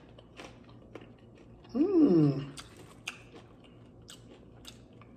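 Close-miked chewing and biting of KFC fried food, with small wet clicks and crunches in the mouth. About two seconds in, the eater makes a brief hum with the voice.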